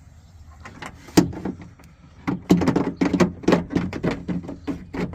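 Door latch assembly and its linkage knocking and rattling against the sheet metal inside a Ford F-250 door as it is worked down into place. There is one sharp knock about a second in, then from about two seconds in a fast, irregular run of clunks and rattles.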